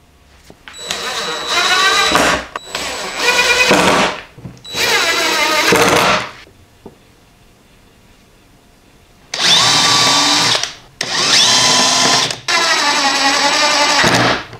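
DeWalt cordless drill/driver running in short bursts of a second or two, driving screws into wood to mount a pillow block bearing; the motor's pitch wavers as each burst loads up. Three bursts come in quick succession, then after a pause of about three seconds three more.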